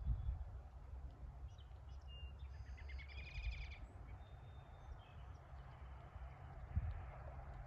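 A small bird sings a short, rapid trill of repeated notes from about two and a half to four seconds in, with a few short chirps around it. Under it runs a steady low rumble of wind on the microphone.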